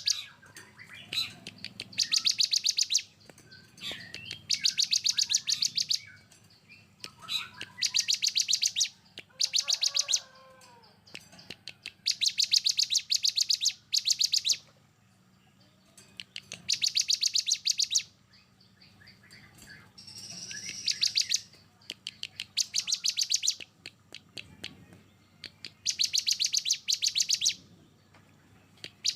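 Songbird tutor song of the 'tembakan rapat dan kasar' type: loud, rapid, harsh rattling bursts of high notes, each about a second or two long, repeated every few seconds, with softer chirps between them.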